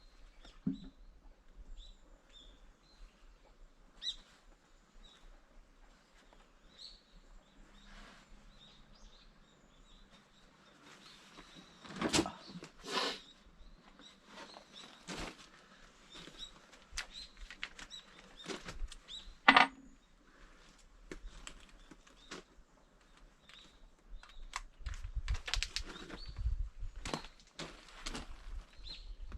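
Scattered knocks and clicks of objects being handled, the loudest a few about halfway through and a sharp one about two-thirds in, with a busier run of knocks near the end. Faint bird chirps come and go behind them.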